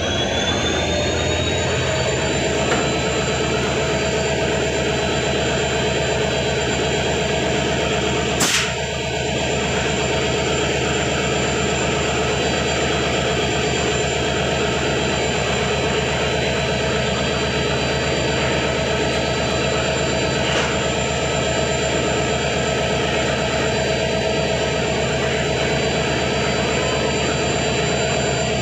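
Large diesel locomotive engine running at a steady speed, a deep drone with a high whine over it. The whine rises and levels off over the first two seconds. One sharp click about eight and a half seconds in.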